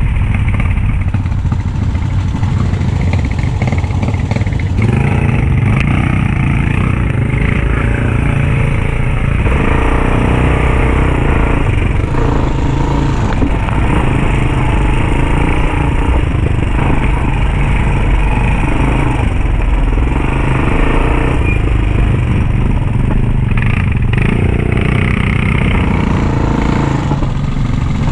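ATV (quad bike) engine running under way on a dirt trail, its pitch and loudness rising and easing off several times as the throttle changes.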